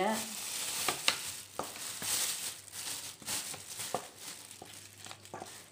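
Metal spoon stirring a thick, wet spice paste in a stainless steel bowl: a soft squishing scrape broken by a few light clicks of the spoon against the bowl.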